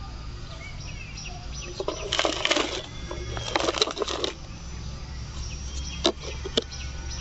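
Loose potting soil poured from a metal garden trowel into a cut plastic bottle, two pours of grains pattering and rattling against the plastic, then two sharp clicks near the end as the bottle is handled.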